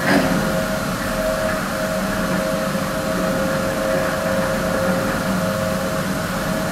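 Automatic rug washing machine running steadily, its motors and rotating brushes humming with a constant whine while it rinses the rug with water; a little bit noisy.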